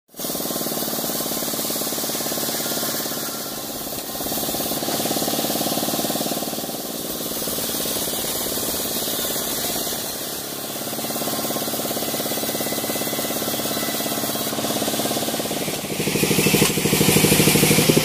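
Band sawmill running, its steel blade cutting lengthwise through a teak log with a steady machine hum that swells and eases slightly. About sixteen seconds in it turns louder with a fast pulsing.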